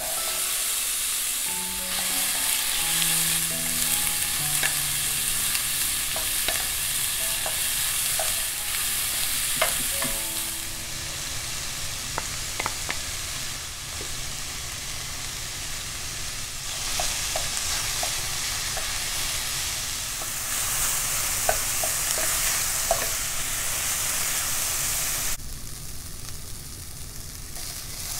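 Diced onion and carrot sizzling in hot oil in a stainless steel skillet, a steady frying hiss with a few light clicks; the sizzle is quieter near the end.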